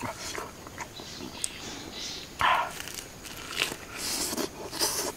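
A person biting and chewing roasted chicken: irregular wet mouth clicks and smacks, with louder bursts of chewing about halfway through and near the end.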